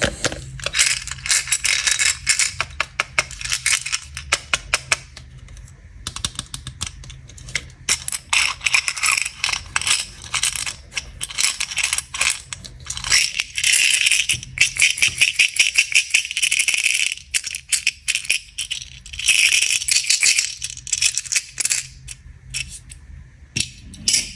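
Small hard candies rattling and clicking in plastic packaging as it is handled, in quick runs of clicks with busier, louder stretches around the middle and near the end.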